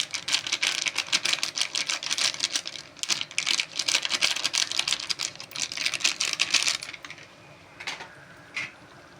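Rapid dense clicking and scraping of a spoon or spatula stirring okra and spice powders in a kadai, stopping about seven seconds in, followed by a few isolated clicks.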